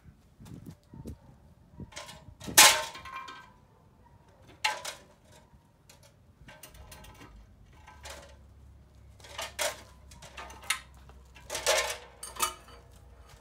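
Scattered sharp metal clanks with brief ringing, the loudest about two and a half seconds in and several more near the end: steel engine-stand parts and hoist chain knocking together as a pulled engine is readied for the stand.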